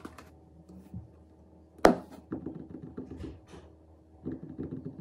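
Kitchen handling sounds: a few light taps as ground cinnamon is shaken from its cardboard box into a blender cup, then one sharp knock about two seconds in, followed by a run of light taps and clatters on the countertop.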